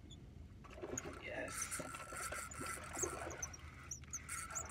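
Spinning reel being cranked to retrieve a lure: a steady gear whine with small clicks, starting about half a second in and dropping out briefly near the end.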